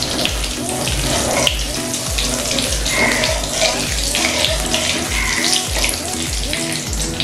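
Mustard oil sizzling and crackling as it heats in a steel wok, with background music's steady beat underneath.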